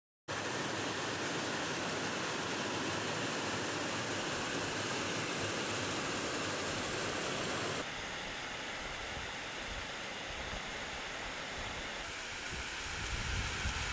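Water rushing over a rocky cascade: a steady, even hiss that starts abruptly just after the opening silence. The sound shifts and gets a little quieter about eight seconds in, and a low rumble joins it in the last couple of seconds.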